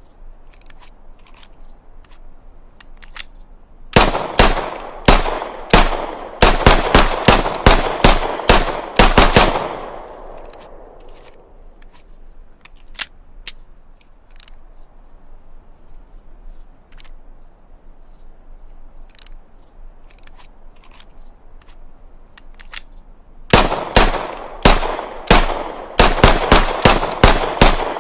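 Browning Hi-Power pistol fired in two rapid strings of shots: the first starts about four seconds in, speeds up to roughly three shots a second and stops after about five seconds. The second begins near the end. Faint clicks come between the strings.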